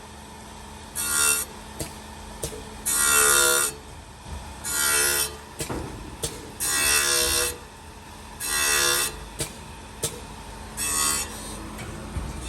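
Automatic CNC saw-blade grinder sharpening an aluminium-cutting saw blade. A pitched grinding screech comes six times, each lasting under a second and about two seconds apart, as the wheel passes over one tooth after another. A steady machine hum runs between the passes.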